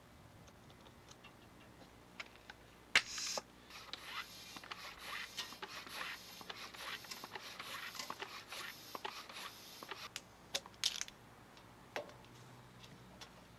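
A sharp click, then several seconds of irregular scraping and rustling with scattered clicks, fading out near the end.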